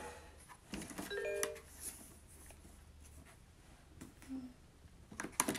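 LeapFrog 100 Words Book, an electronic talking picture book, sounding a short electronic chime about a second in and again near the end, with light plastic clicks as its pages are pressed and turned.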